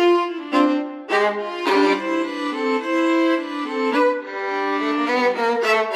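Background music: a single melody line of short and held notes.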